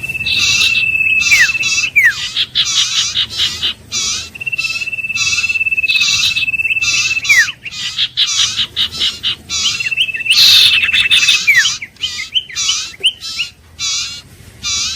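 Common iora giving its long, level whistle three times, each held for about two seconds and ending in a quick downward slur. Throughout, a fast series of short, repeated chirping notes runs over and between the whistles.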